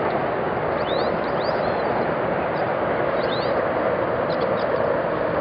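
A steady rushing background noise outdoors, with a few short high bird chirps about a second in and again after about three seconds.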